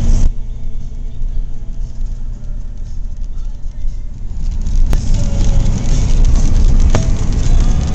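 Engine and tyre noise of a moving vehicle heard from inside its cabin: a steady low rumble that grows louder a little past halfway, with two brief sharp clicks.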